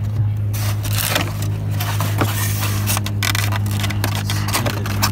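Scraping and rustling handling noise as a rubber radiator mount is handled, over a steady low hum.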